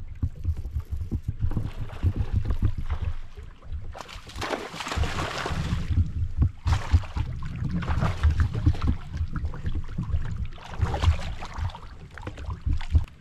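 Wind buffeting the microphone over choppy lake water slapping around a kayak, with a few louder rushing noises, the longest about four seconds in.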